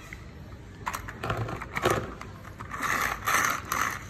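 Plastic toy fire truck being handled and set down on concrete: a run of clicks and clatters from its plastic body and ladder, with short scraping bursts, starting about a second in.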